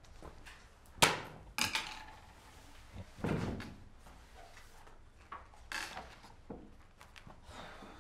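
Furniture and handling sounds: a sharp knock about a second in, the loudest sound, then a couple more knocks and a scraping rustle around three seconds in, with light knocks and rustles after. Someone is sitting down at a wooden desk, setting a notebook on it and picking up a book.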